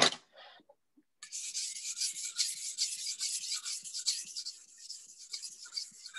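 A kitchen knife blade being stroked back and forth across a sharpening stone: a steady gritty scraping of many quick strokes, starting about a second in, as the second side of the edge is sharpened. A sharp knock comes at the very start.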